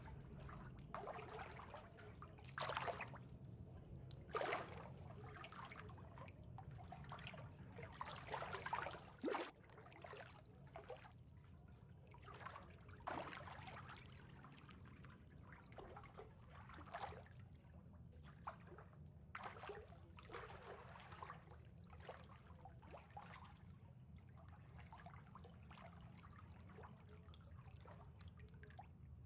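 Swimming-pool water lapping and trickling, faint and irregular, with a few louder sloshes in the first ten seconds over a steady low hum.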